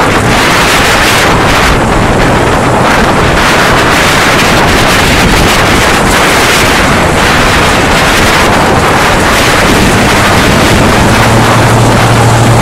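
Dixon Ultra 52 mower's Kohler Courage Pro 25 HP V-twin gas engine running while the mower stands still, under heavy wind noise on the microphone. A steadier low hum comes up about ten seconds in.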